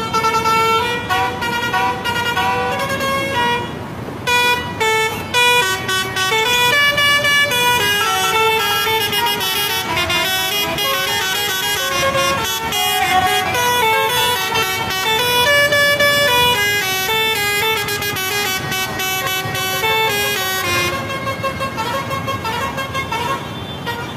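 Basuri-style multi-tone musical air horns on lorries play tunes, several notes stepping up and down each second, over the noise of passing traffic. The tune breaks off briefly about four seconds in and fades near the end.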